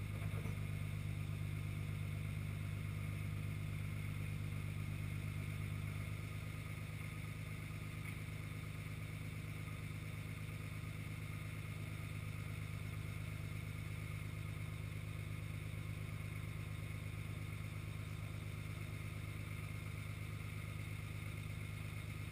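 Flatbed boom truck's engine running steadily with a low hum while driving the knuckle-boom crane's hydraulics to lift a pickup bed; it drops slightly in level about six seconds in.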